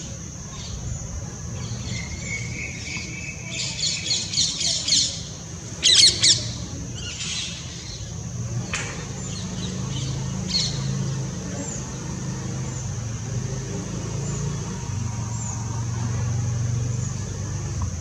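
Purple-rumped sunbird calling: a quick run of high twittering notes, then a few sharp, loud chips about six seconds in, with short high chirps repeating through the rest. Underneath are a steady high-pitched drone and a low rumble.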